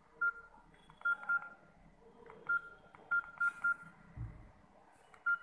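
Key beeps of a Samsung keypad mobile phone: about eight short beeps at one pitch, each with a button click, in irregular succession as its keys are pressed. A soft low thump a little after four seconds in.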